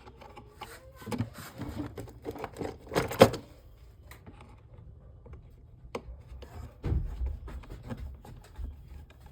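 Handling noise of a repair: scattered clicks, rubbing and light knocks as wires are pushed inside a Bluetooth trolley speaker's cabinet beside a newly fitted battery, loudest about three seconds in, with a sharp click near six seconds and dull thumps soon after.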